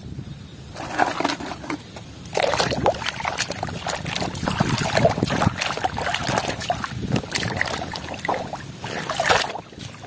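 Muddy water sloshing and splashing in a basin as a plastic toy is dunked and swished around by hand. It starts light and grows busier after about two seconds.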